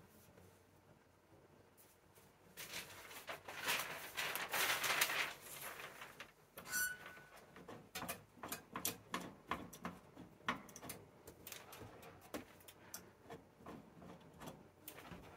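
Rustling and handling noise, then a brief squeak and a long run of small irregular clicks and creaks as the pressure-adjustment knob on top of a clamshell heat press is turned.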